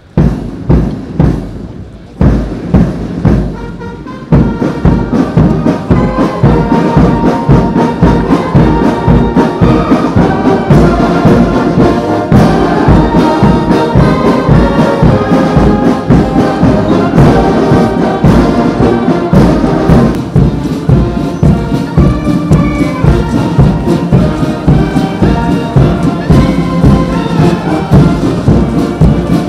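Brass band playing a march over a steady drum beat, growing louder and fuller about four seconds in.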